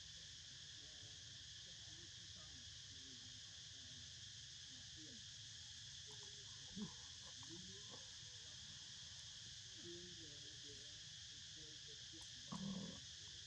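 Steady, faint chorus of insects droning in several high bands. A brief soft sound comes about halfway, and a slightly longer one near the end.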